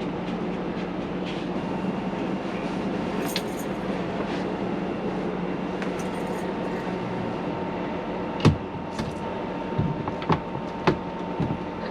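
A steady hum and rushing noise, with a few sharp clicks and knocks from about eight seconds in as a window frame and mounting brackets are handled.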